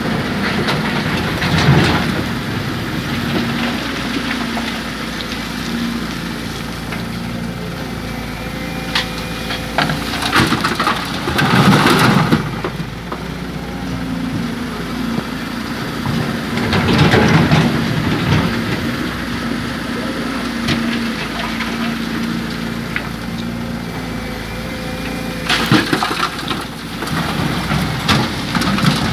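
Excavator's diesel engine running steadily, with loud crunching, rattling bursts four times as bucketloads of soil are dumped into a dump truck's bed.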